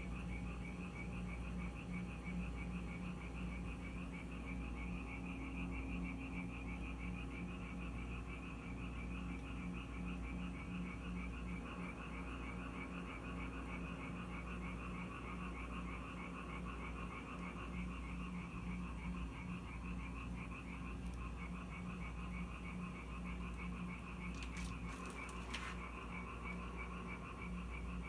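Japanese tree frogs calling in a chorus, a fast steady run of short, high croaks, with a steady low hum underneath. A few faint clicks come near the end.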